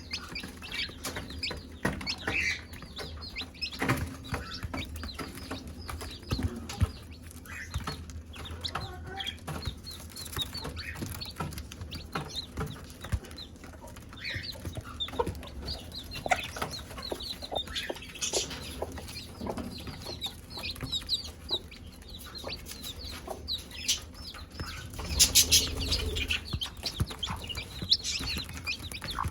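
A mother hen clucking to her chicks, calling them to food, while the chicks keep up many short high peeps. A louder, noisier flurry comes near the end.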